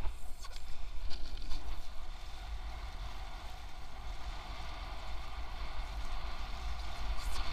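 Wind buffeting the camera microphone in a steady low rumble, over the hiss and wash of choppy water running past the hulls of an A Class sailing catamaran under way, with a few splashes in the first second or two.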